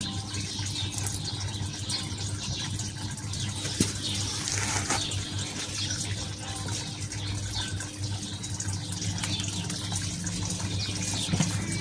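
Steady rushing background noise with a constant low hum, with a sharp tap about four seconds in and a few fainter taps.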